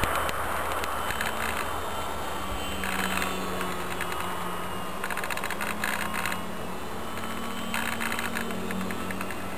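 Radio-controlled model T-28 Trojan aeroplane flying overhead, its motor a steady distant drone that rises and falls slightly in pitch as it passes. Several short spells of rapid crackling come and go over it.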